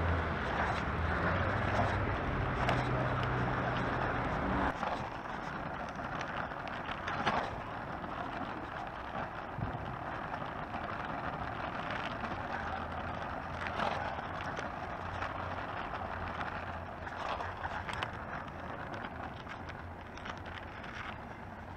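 Oxelo Town 9 EF V2 kick scooter rolling over pavement and asphalt: a steady rolling rumble with wind, and scattered bumps and knocks from the deck. A low steady hum runs under it for the first few seconds and cuts off suddenly about five seconds in.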